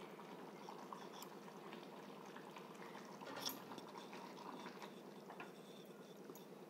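Bottle gourd curry simmering in a saucepan on a gas stove, a faint steady bubbling; about three seconds in, a spatula stirs through it, briefly louder.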